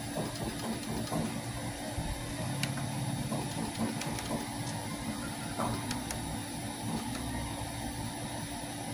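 3D printer running, with a steady hum from its fans and stepper motors and a few faint ticks as the toolhead works over the bed.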